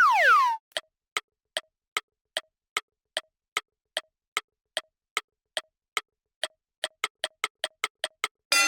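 Cartoon sound effects: a quick falling whistle, then a countdown-style ticking at about two and a half ticks a second that speeds up to about five a second near the end. Bright music returns right at the end.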